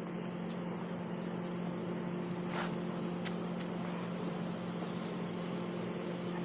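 A steady, unchanging low hum with an even hiss over it, and a few faint clicks.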